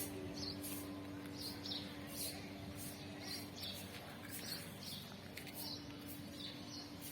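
Birds chirping in repeated short, high calls, roughly two a second, over a steady low hum.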